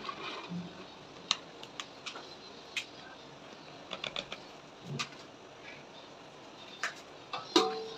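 Scattered light clicks and taps of kitchen utensils handled around cooking pots, with a short metallic clink and ring near the end.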